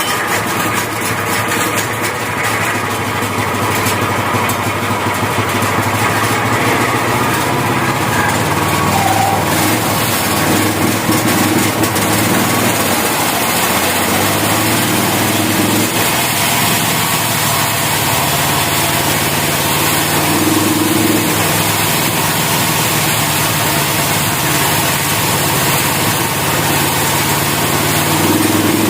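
Engine of a portable band sawmill running steadily, starting abruptly and holding with small swells in pitch and level.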